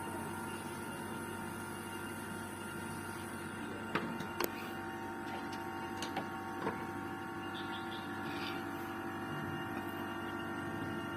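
Steady machine hum of an air conditioner unit running, with a few sharp clicks, two about four seconds in and a few more around six seconds in.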